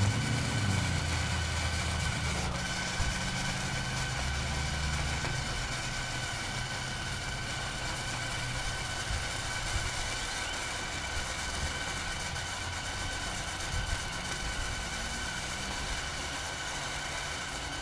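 Blue Demon 140MSI welder laying a long continuous flux-core bead: the arc gives a steady sizzling crackle, with a few faint steady high tones underneath, unbroken throughout.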